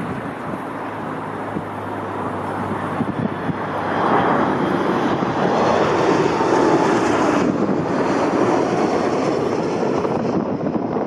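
Airliner engine noise from a passing aircraft, a rushing roar that swells about four seconds in and eases near the end.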